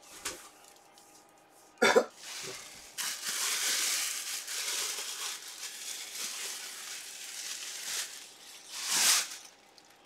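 White packing wrap being rustled and peeled off a mini batting helmet by hand: a sharp handling knock about two seconds in, then several seconds of crinkling, with a louder swell of rustling near the end.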